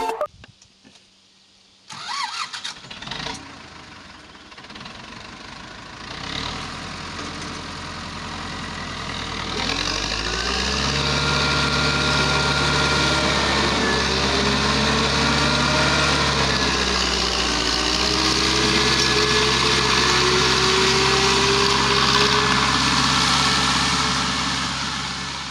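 Tractor diesel engine starting about two seconds in, then running steadily. About ten seconds in it gets much louder, with a thin steady whine, and a tone slowly rises in pitch over the last several seconds.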